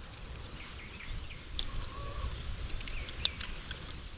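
Scattered sharp metallic clicks of a screwdriver picking and prying the old, dried-out seals out of the log splitter's hydraulic cylinder, with the loudest click a little after three seconds. Faint birds chirp over a low outdoor rumble.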